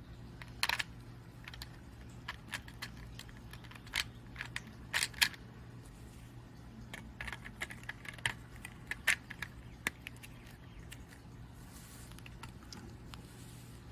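Small plastic Lego pieces clicking and clattering as they are handled and fitted into a Lego heart box, in sharp irregular clicks, over a faint steady low hum.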